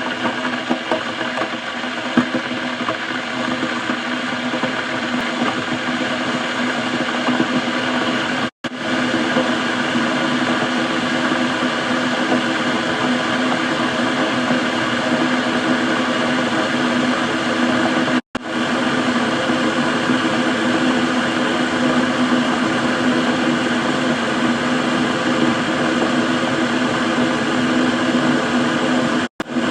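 Water boiling in a kettle: a steady rumbling, bubbling noise with a hum running through it. It cuts out for a split second three times.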